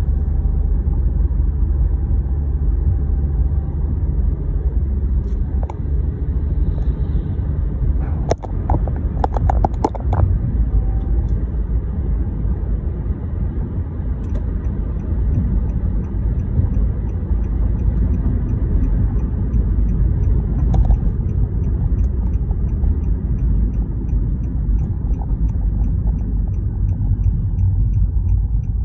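Road and engine noise inside a moving vehicle's cabin: a steady low rumble, with a brief cluster of clicks and knocks about eight seconds in and faint regular ticking from about halfway on.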